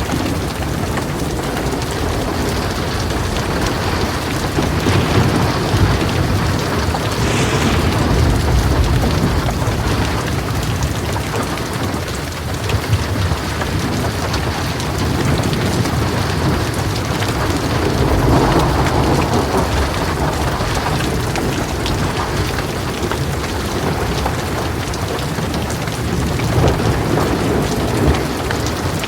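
Heavy rain pouring steadily, with thunder rumbling low underneath and a louder roll of thunder about two-thirds of the way through.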